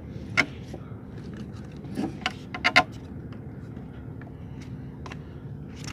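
Sharp metallic clicks and knocks from pliers working a hook out of a small fish on a wooden boat's gunwale, a few spaced out and a loud pair near the middle, over a steady low hum.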